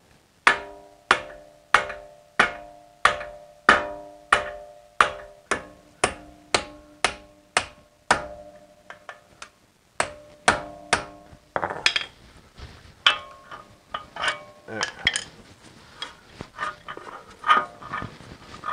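Steel hammer striking a punch held against the CV axle end in a BMW X3's front wheel hub, driving out the frozen-in axle. About a dozen evenly spaced blows, under a second apart, each ringing metallically. A few seconds before the middle they give way to lighter, irregular knocks and taps.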